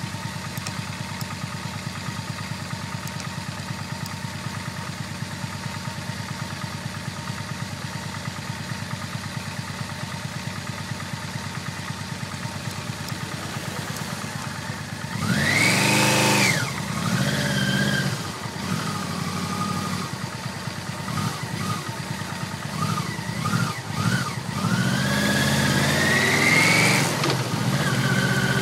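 Yamaha VMAX1200's V4 engine idling steadily. About halfway through it gives one sharp rev that rises and falls back, then a few small blips. Near the end it accelerates away with the pitch rising, with a break like a gear change just before the end.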